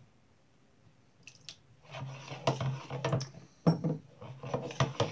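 A little water poured into a plastic bowl of PVA slime glue, then a metal spoon stirring the wet mixture, with repeated scrapes and knocks against the bowl from about two seconds in.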